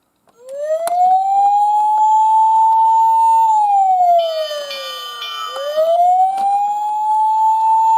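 Toy fire engine's electronic siren sounding a slow wail: the pitch rises over about three seconds, holds, falls away, then rises again. There is a click near the start, and a short cluster of higher steady tones midway.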